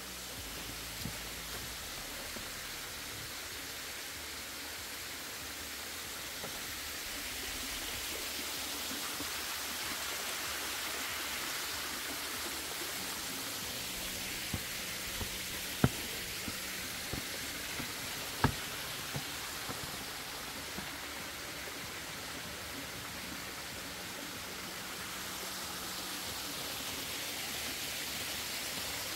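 Torrent water rushing steadily, an even hiss that swells and eases, with a few sharp knocks around the middle, the loudest two a couple of seconds apart.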